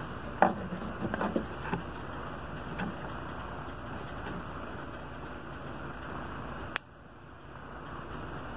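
Steady background hiss with a few light taps in the first two seconds and one sharp click about seven seconds in, after which the hiss briefly drops away and swells back.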